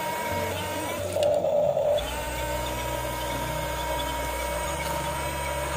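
Small electric motors and gearing of a radio-controlled model construction vehicle whining steadily. A lower hum joins in about two seconds in.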